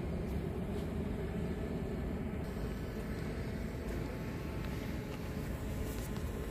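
Steady low rumble of outdoor city ambience with no distinct events.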